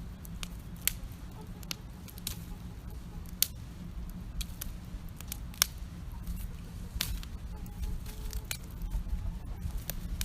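Wood campfire crackling: sharp, irregular pops and snaps, about one a second, over a low steady rumble.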